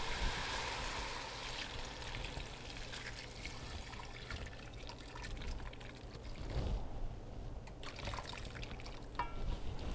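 Water poured in a steady trickle from a plastic cup into a large aluminium pot of browned meat and vegetables.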